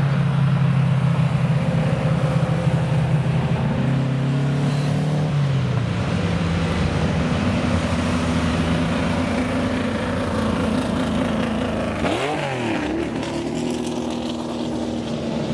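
Racing car engine idling steadily, its note dropping a little about five seconds in, with a quick throttle blip, revving up and straight back down, about twelve seconds in.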